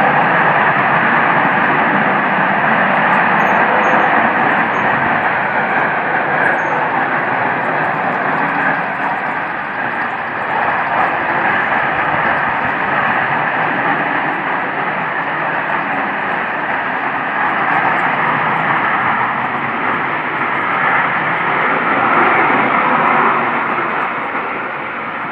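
Really loud, continuous noise from the sky that swells and eases slowly. It sounds like jets flying overhead, though no planes are there to account for it.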